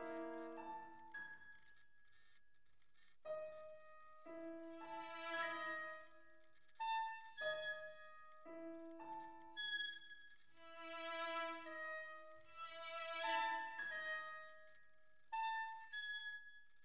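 Contemporary chamber music for clarinet, trombone, cello and piano, played live: short phrases of held notes and struck piano notes, broken by brief pauses.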